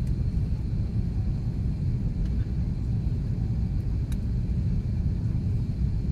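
Steady low rumble inside the cabin of an Airbus A330-323 airliner on its descent to land: the noise of its Pratt & Whitney PW4000 engines and the airflow over the fuselage, with a faint tick about four seconds in.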